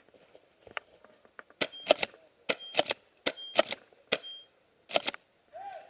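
Tokyo Marui M870 gas airsoft pump shotgun fired and racked over and over: sharp clacks in quick clusters, about one cluster a second, some with a faint metallic ring.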